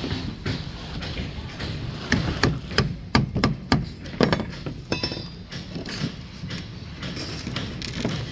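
Claw hammer striking at the beam's rebar cage and pipe sleeves, a quick run of about eight sharp metallic knocks starting about two seconds in, then fainter clicks.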